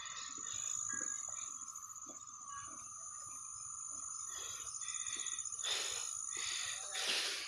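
Steady, high-pitched insect drone with a fast fine pulsing, and two short breathy bursts near the end.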